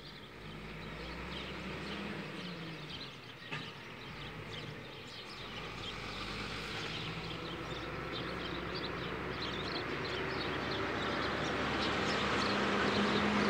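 An engine droning and growing steadily louder as it approaches, with a steady low hum in it, while small birds chirp.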